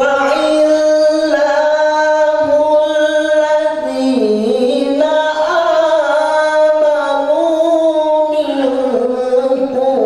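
A man's solo voice chanting through a microphone in long, ornamented held notes that slide up and down in pitch, in the melodic style of Quran recitation.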